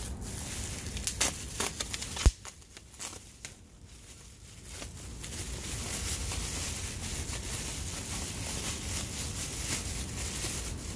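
Plastic bubble wrap being handled and pulled open, crinkling and crackling, with one sharp snap a little over two seconds in, then a softer steady rustle.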